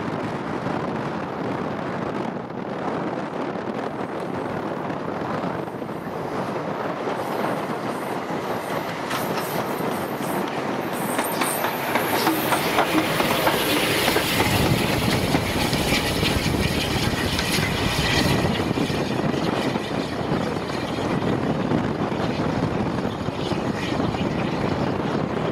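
Bulleid Battle of Britain class steam locomotive 34081 '92 Squadron' and its train passing close by on the line. The noise grows loudest with a run of rapid clatter about halfway through as the engine goes by, then eases a little as it draws away.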